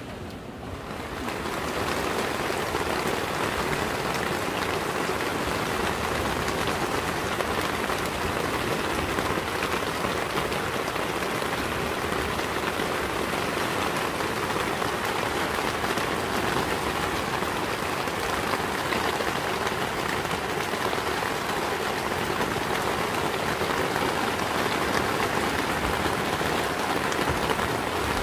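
Heavy rain falling steadily, a dense even hiss that swells up over the first couple of seconds and then holds.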